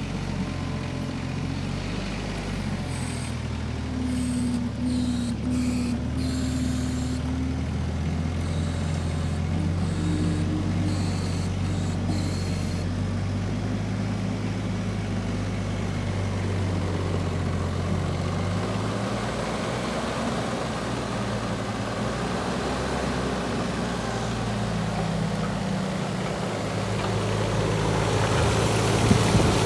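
CAT 302.4D mini excavator's diesel engine running steadily while its hydraulics swing and tilt the tiltrotator bucket and work the dozer blade, the engine note shifting in pitch several times as the load changes. The sound grows louder near the end.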